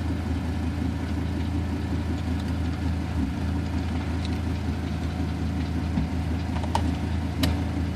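Steady low mechanical drone, like an idling engine, with two light clicks near the end.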